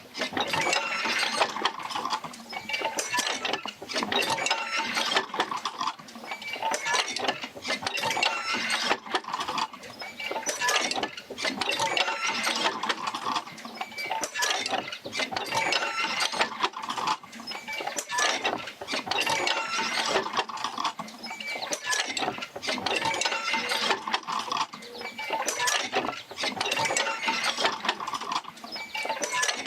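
Field wheel of a jerker-line oil pumping system rocking back and forth, driven by the Fitzgerald rig. Its joints and rod connections creak, squeak and clink with many small knocks, swelling and easing in a slow, regular cycle every couple of seconds.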